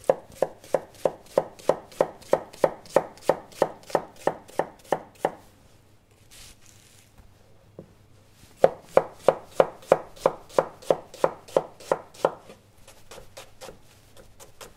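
Chef's knife dicing an onion finely on a plastic cutting board: steady knocks of the blade on the board, about three or four a second. After about five seconds the cutting stops for roughly three seconds, then a second run of cuts follows, easing into lighter taps near the end.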